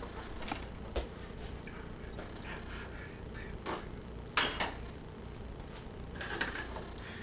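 Cookware clatter: a spatula clinking against a frying pan on a stovetop, with a few light taps and one loud sharp clank about four and a half seconds in.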